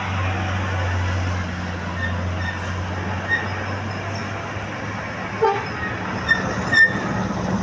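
Large bus engine running with a steady low drone and road noise. A few short sharp sounds come in the second half.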